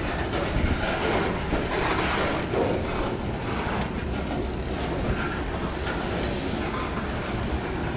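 Covered hopper cars rolling slowly past on the track as a cut of cars is shoved, a steady rumble of the wheels and trucks on the rails.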